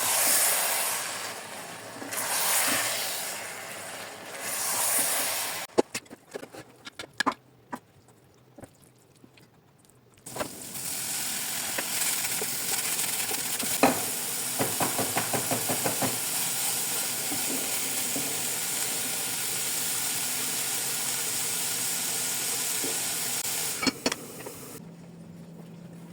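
Ground beef sizzling in a frying pan. The sizzle swells up and down in the first few seconds, then a few scattered knocks come in a quieter spell. A steady sizzle follows, with a quick run of clicks in the middle, and it cuts off suddenly near the end.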